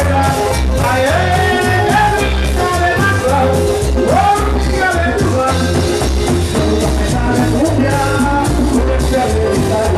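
A vallenato band playing loudly through the concert sound system, with singing over a steady pulsing bass beat.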